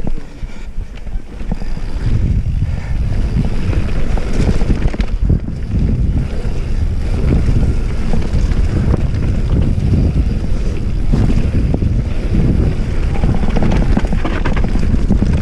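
Wind buffeting the microphone over the rattle and knocks of a mountain bike riding fast down a dirt trail. It grows louder about two seconds in.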